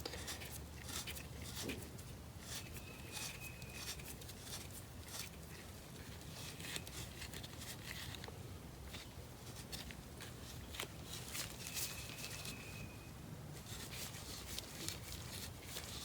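Faint scraping and light clicks of hand-threading a steel drag link adapter onto its anti-seized threads and handling the parts, over a low steady hum. A faint high steady tone sounds briefly twice.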